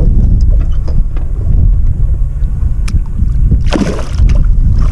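A steady low rumble of wind on the microphone, with a short splash of water about three and a half seconds in as a red drum is let go at the water's surface.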